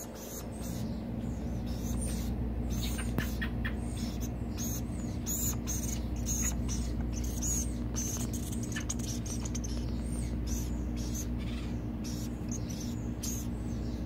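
Acorn woodpeckers on a wooden perch making quick, irregular clicks and scratchy sounds, several a second, over a steady low hum.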